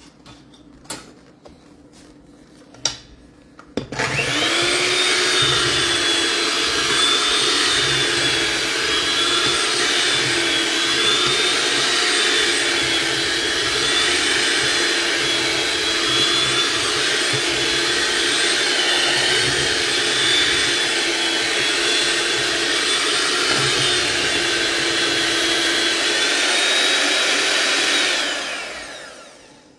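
Black+Decker electric hand mixer switched on about four seconds in after a few light clicks. Its motor spins up to a steady whine as the beaters mix carrot cake batter in a stainless steel bowl, then winds down as it is switched off near the end.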